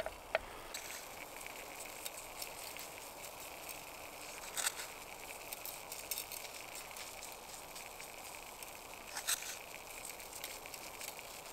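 Perch fillets frying in a dry pan, without oil, over a canister gas stove: a faint, steady sizzle and hiss, with a few brief clicks.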